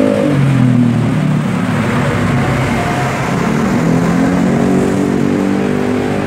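An engine running steadily, its pitch slowly drifting up and down.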